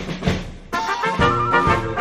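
Background music with a steady drum beat, joined by sustained brass-like notes about three-quarters of a second in.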